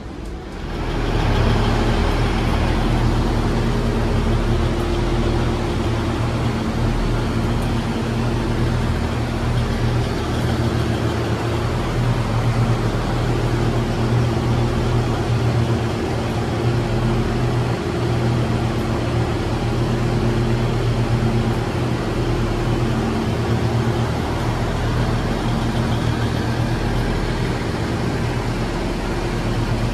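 Diesel engine of a SMART diesel multiple-unit railcar idling steadily beside the platform, an even, unchanging drone with a low hum in it.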